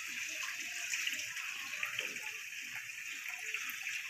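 Water poured off soaked rice from a steel bowl into a steel colander, splashing in a steady stream.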